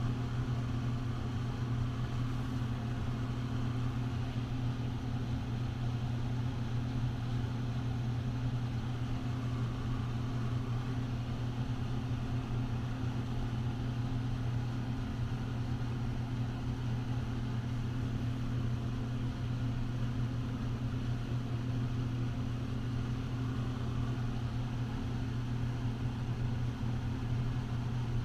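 Steady low machine hum with two constant low tones, unchanging, with no knocks or tool strikes standing out.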